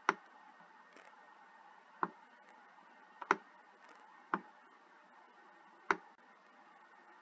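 Computer mouse button clicking five times, a second or two apart, one of them a quick double click, over a faint steady hiss.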